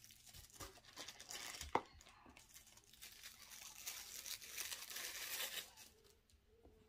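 Plastic packaging crinkling and being torn open by hand, in two stretches of rustling, with a sharp snap just under two seconds in; the rustling dies away about a second before the end.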